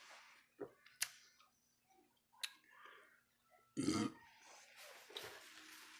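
A man lets out one short burp about four seconds in, just after a swig of beer from a can. A few sharp clicks come before it.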